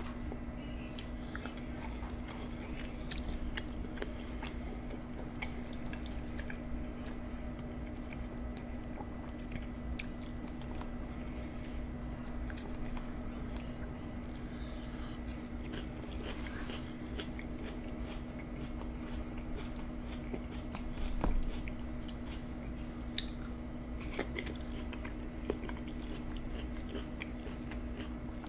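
Close-miked chewing and biting of deep-dish supreme pizza: wet mouth sounds with many small scattered clicks, over a steady low hum.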